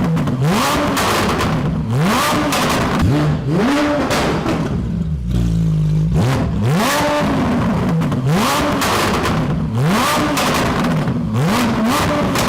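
Car engine revved hard in quick repeated throttle blips through a loud modified exhaust, each rev rising and falling about once a second, with exhaust pops as the throttle is released. It drops to a steady idle for about a second, five seconds in, then the blipping resumes.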